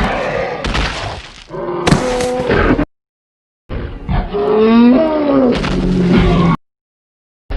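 Made-up Torosaurus dinosaur sound effect: two animal-like roaring calls of about three seconds each, with a short silence between them. The second call wavers up and down in pitch.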